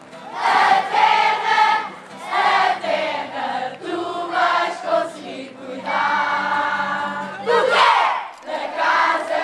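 A large group of children and adults singing the camp anthem together in loud phrases, with a long held note a little past the middle and a rising whoop just before the last phrase.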